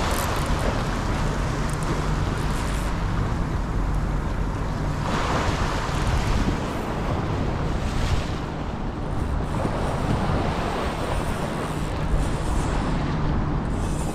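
Harbour waves washing and splashing against a sandstone seawall, surging up every few seconds, with wind buffeting the microphone.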